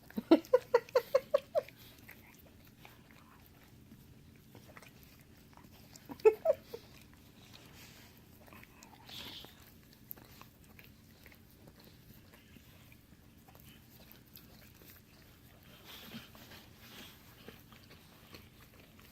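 Dogs licking at each other's mouths: faint wet clicks and smacks of tongues and jaws. Near the start a rapid run of about eight short pitched voice pulses stands out, with two or three more about six seconds in.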